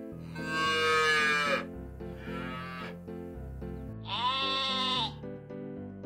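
Sheep bleating three times over background music; the first bleat is the longest and loudest, and it falls in pitch at its end.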